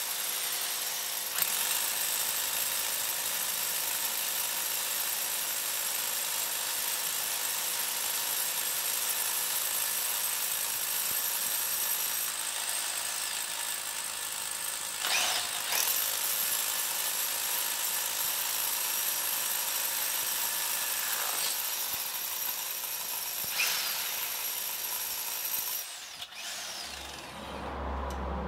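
TOTAL TH115326 1500 W rotary hammer drilling into stone with an SDS-plus bit: a steady motor whine over continuous hammering. The pitch sweeps briefly a couple of times, and near the end the high whine drops away, leaving a lower hum.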